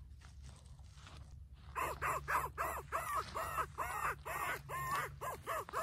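A rapid, even series of harsh crow-like caws, about three a second, starting about a second and a half in.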